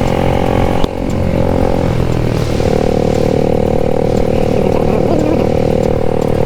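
Motorcycle engine running while being ridden, with a brief dip in revs about a second in before it picks back up and holds a steady pitch.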